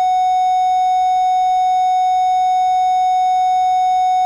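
A long, unbroken electronic beep at one steady mid pitch: the start tone of a police interview-room recorder.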